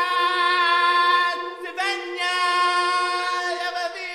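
A voice holding two long, steady notes, one after the other, the second starting just under two seconds in.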